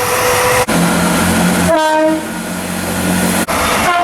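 A string of short train-horn clips edited together: a held horn note cuts off, then a train's engine hums steadily with a short horn blast about two seconds in, and another horn note begins near the end.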